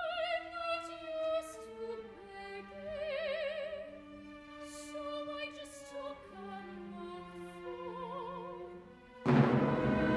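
Soprano singing an operatic aria with wide vibrato over a soft orchestral accompaniment. About nine seconds in, the full orchestra comes in suddenly and loudly.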